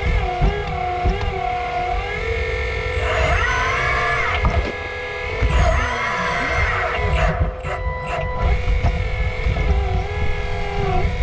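1/8-scale RC excavator's hydraulic pump whining steadily, its pitch dipping and recovering as the machine works under load, over a low rumble with scattered knocks.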